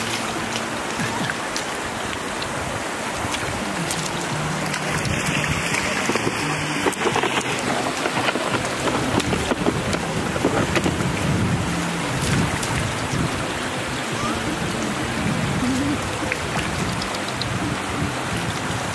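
Shallow floodwater rushing over a rocky bed, a steady hiss, with splashes and small knocks scattered through it as feet and a woven basket move in the water.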